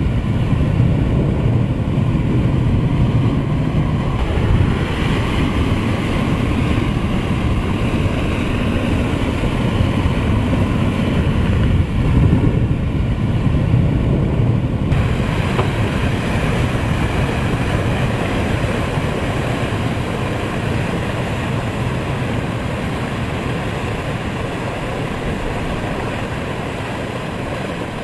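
Water gushing from the Boeing 747 Supertanker's belly tank outlets and splashing onto the tarmac: a loud, steady rushing noise that turns brighter and hissier about halfway through.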